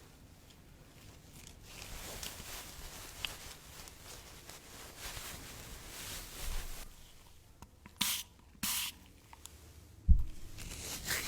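Soft rustling and scraping of objects handled close to the microphone, then two short hissing sprays about eight seconds in, and a single thump near the end.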